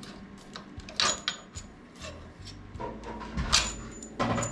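Metal parts and hand tools clinking and knocking as the car's suspension is taken apart: a few sharp metallic clanks, about a second in, around three and a half seconds and near the end, some with a brief high ring.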